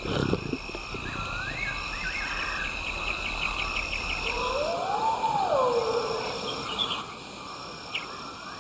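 Night insect chorus: a steady high trill with short chirps repeating about every second and a half. About five seconds in, a clear whistled call rises and then falls.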